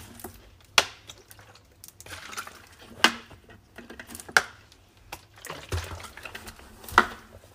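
Four sharp clicks with soft rustling between them, from a plastic drink bottle being handled, and a drink taken from it near the end.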